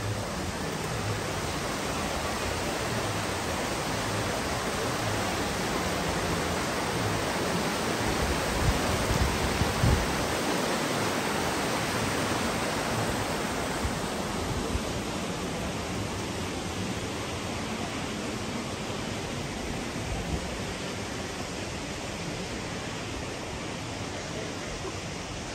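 Mountain stream cascading over boulders: a steady rush of water, a little louder in the first half and softer after the middle, with a few low knocks about nine to ten seconds in.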